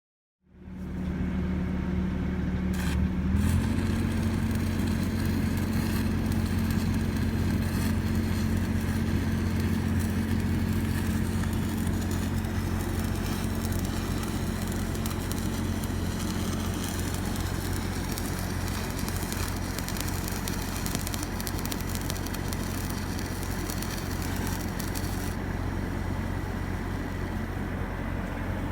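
Engine-driven welder running at a steady speed, picking up slightly about three seconds in, under a continuous crackle of arc welding that dies down near the end.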